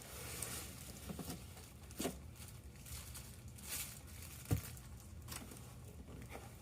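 Rolls of vinyl fabric being handled and unpacked: rustling and crinkling with scattered soft knocks, and one sharper knock about four and a half seconds in.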